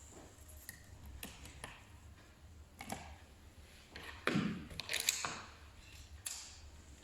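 Small tools being handled: scattered clicks and taps, with a louder scrape and rub about four seconds in.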